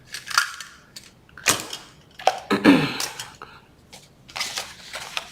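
Craft tools and small desk items clattering and clicking as they are picked up and moved about in a search, in several short bursts.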